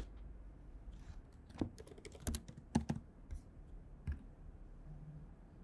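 Computer keyboard keys typed in a faint, irregular run of about eight clicks.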